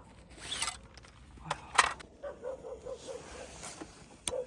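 Sharp single clicks of a camping gas stove's piezo igniter being pressed without lighting the burner: the igniter is broken. A short quick run of pulsed yelps sounds a little past halfway.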